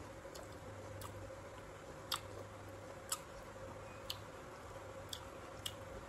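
A clock ticking about once a second, sharp and regular, over a faint steady hum.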